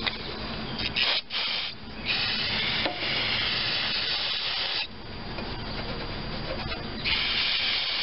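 Aerosol can of carburetor cleaner spraying in hissing bursts: two short blasts about a second in, a long spray of nearly three seconds, then another spray starting near the end.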